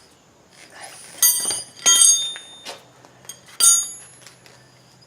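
Metal tools knocking together, three loud ringing clinks with a few lighter taps between them.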